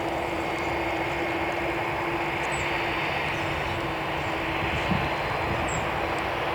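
Boeing 737-800's CFM56-7B turbofan engines running on approach to land: an even wash of engine noise with a steady low hum.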